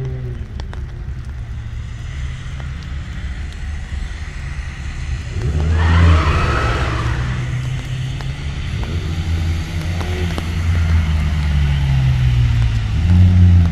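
Holden VX Commodore's engine running hard up a hillclimb course, getting louder as the car approaches and passes close by. A brief burst of higher-pitched noise comes about six seconds in.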